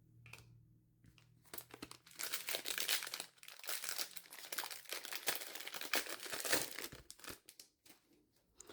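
Foil trading-card booster pack wrapper crinkling and tearing as it is ripped open, a dense run of crackles lasting about six seconds.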